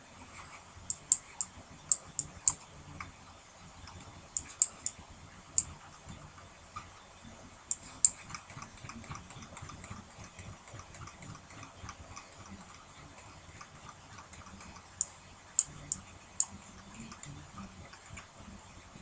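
Sharp clicks at a computer desk in quick runs of two to four, with faint irregular ticking between the runs.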